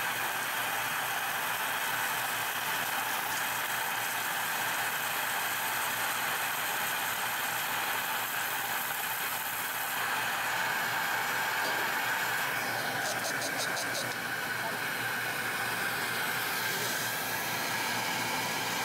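Steady machine hum and hiss of an automated welding station running a circular weld around an LPG cylinder's valve boss, with a brief run of light, rapid ticks about two-thirds in.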